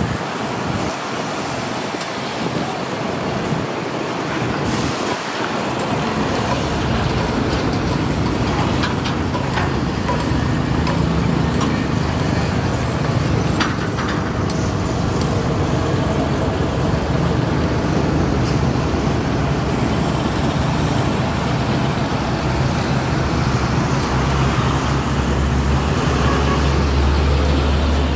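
Matador ME210LC-1 hydraulic excavator's diesel engine running steadily as it swings and digs. Its low hum gets heavier in the last few seconds as the bucket works in the trench, with a few sharp knocks along the way.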